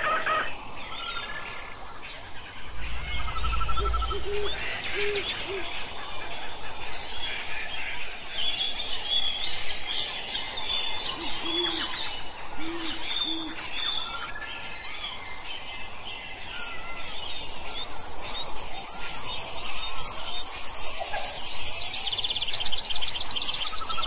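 Tropical forest ambience with many birds calling: overlapping short whistles and chirps, and twice a run of three short low hooting notes. A brief low rumble comes about three seconds in, and a high, fast-pulsing insect trill joins about two-thirds of the way through.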